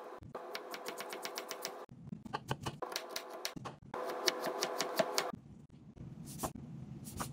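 Chef's knife chopping an onion on a plastic cutting board: three quick runs of rapid knocks, about seven a second, with short pauses between them. Near the end come two single knife strikes against the board.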